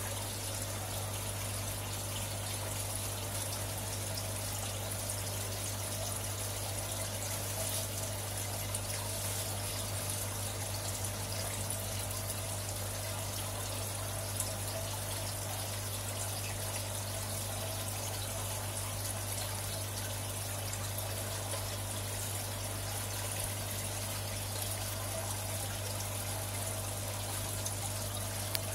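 Aquarium water running steadily from a submerged PVC filter return pipe, trickling and bubbling into the tank over a steady low pump hum.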